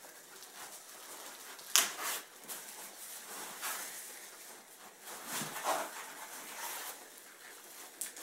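Packaging being handled as a soundbar is lifted out of its box: irregular rubbing and scraping, with one sharp knock about two seconds in.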